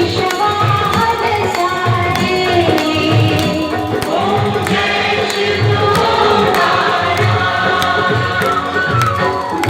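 Indian music with melodic singing over a steady drum beat, with low drum hits about once a second and lighter ticking percussion.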